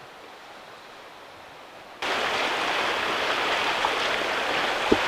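A faint hiss, then an abrupt switch about two seconds in to a steady rush of water, like waves washing on a shore or a running stream. There is a single light tap near the end.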